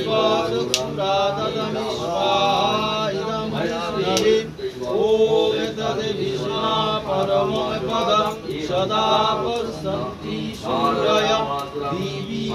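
A man chanting Hindu mantras in a continuous sing-song recitation, with short breaks for breath. This is the mantra recitation that goes with a shraddha fire offering (homa).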